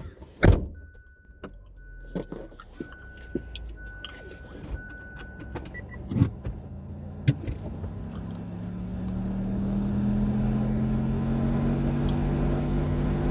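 A car door thumps shut and a car's warning chime beeps on and off for several seconds. After a couple more knocks, the engine note rises steadily in pitch and loudness as the car pulls away and accelerates.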